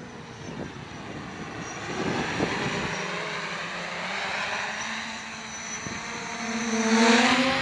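Quadcopter's brushless motors and propellers buzzing in flight, the pitch gliding up and down with the throttle. It is loudest about seven seconds in, where the motor pitch rises as it passes close.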